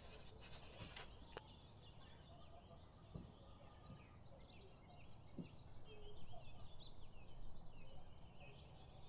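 Faint chorus of small birds chirping over a steady background hush, with the chirps growing busier in the second half and a couple of soft knocks.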